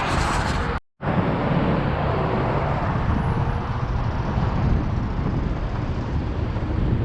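Wind rushing over the microphone with road traffic noise while riding an electric scooter, a steady low rumble throughout. The sound cuts out completely for a moment just under a second in, then resumes.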